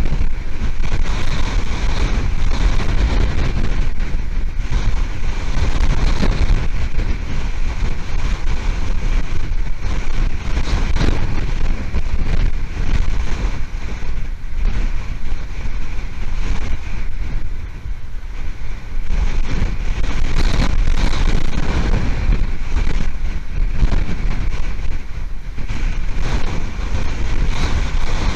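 Hurricane wind blasting across an outdoor nest camera's microphone: a loud, steady rush of wind noise with a heavy low rumble, surging in gusts.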